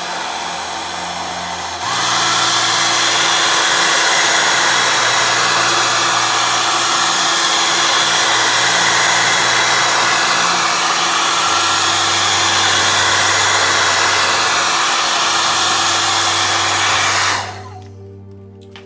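Hair dryer blowing steadily, a rush of air over a steady motor hum, used to heat the edge of a phone screen to loosen it. It gets louder about two seconds in and shuts off near the end.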